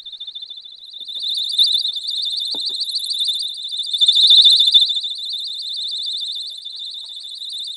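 Small electronic alarm sounding a piercing, rapidly pulsing high tone without a break. It is loudest around the middle, as it is lifted out of the fiberglass-insulated bucket, and quieter over the last seconds, as it goes into the cellulose-insulated bucket.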